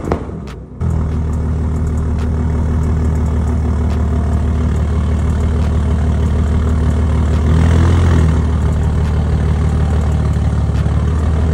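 Toyota Supra A90's tuned B58 straight-six with a big single turbo, idling steadily through a titanium cat-back exhaust, with a slight swell about eight seconds in.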